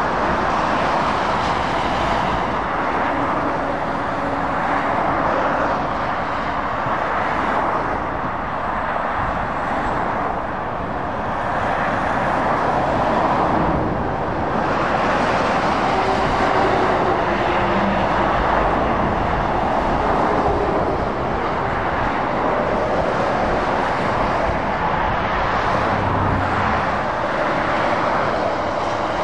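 Steady motorway traffic noise: tyres and engines of lorries and cars passing, swelling and easing as vehicles go by.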